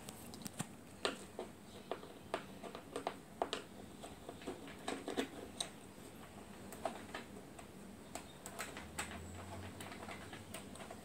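Scattered light clicks and ticks of a screwdriver being worked at the screws of a Casio Privia PX-300 digital piano's wooden panel.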